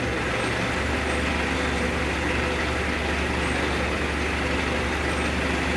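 Hydra crane's diesel engine idling, a steady low hum at an even level.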